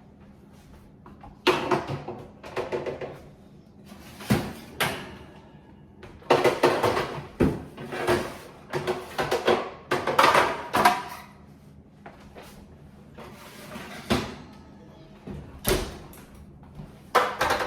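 Kitchen clatter at the oven: an oven door and metal baking sheets knocking and clanking as trays of baked apple rings are taken out and the rings turned over. The knocks come in scattered bursts, busiest in the middle, over a faint steady hum.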